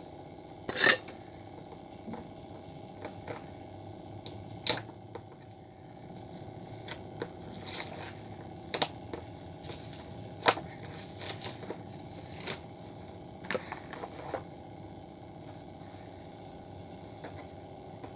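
Packaging being handled while a boxed wireless speaker is unpacked: irregular clicks, taps and crinkles, the loudest about a second in, with more scattered through the first part and fewer near the end.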